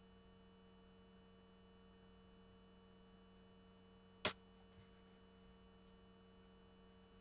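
Near silence with a faint steady hum, broken once a little past halfway by a single sharp click, followed by a much softer tap.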